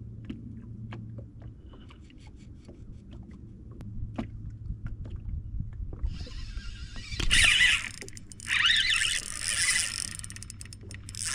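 Fishing reel being worked: light clicks of the reel and tackle, then from about six seconds in several raspy, gear-like runs of cranking.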